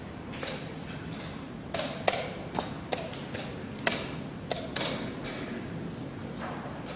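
A quick run of sharp wooden clicks and knocks, about a dozen in three seconds: wooden chess pieces set down hard on a wooden board and a chess clock's buttons hit as moves are made at blitz speed.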